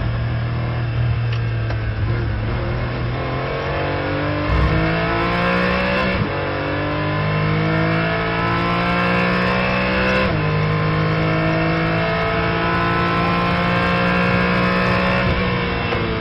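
Porsche 718 Cayman GT4 race car's flat-six engine heard onboard under hard acceleration. It holds a steady pitch at first, then climbs through the revs with two sharp upshifts partway through, followed by a longer, slower climb, and falls off right at the end.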